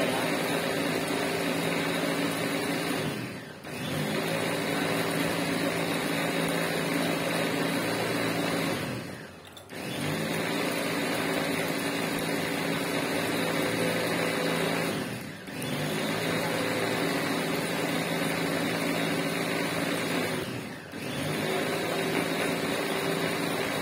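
A steady machine whir with a few low humming tones. It dips out briefly and comes back about every six seconds, four times.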